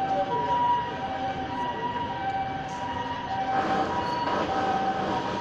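Fire engine's two-tone siren, switching back and forth between a high and a low note, each held about a second. Street and crowd noise beneath it grows louder about three and a half seconds in.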